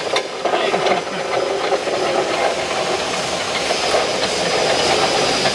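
A steady hiss of background noise, with a brief faint knock right at the start.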